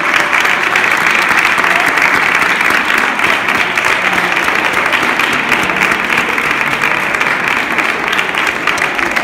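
A crowd of schoolchildren clapping and cheering loudly, a dense, steady clatter of many hands and voices.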